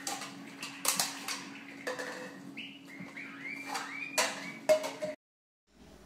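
Scattered knocks and clatters of household objects being knocked about, mixed with a few short chirps from a pet parrot; the sound cuts off abruptly a little after five seconds in.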